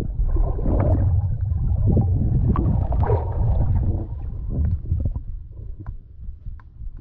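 Underwater sound picked up by a submerged camera: a low rumbling water noise with bursts of bubbling, and scattered sharp clicks that ease off after about four seconds.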